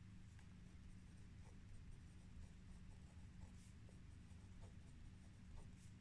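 Faint, irregular scratches of handwriting on paper, over a steady low hum.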